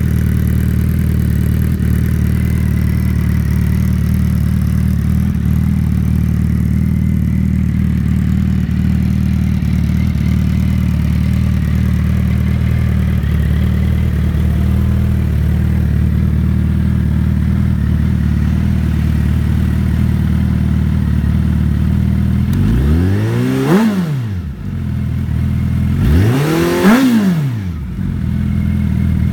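2014 Suzuki Hayabusa's 1340 cc inline-four idling steadily through a Coffman's aftermarket exhaust, then revved twice near the end with quick throttle blips, the pitch rising and falling back to idle each time.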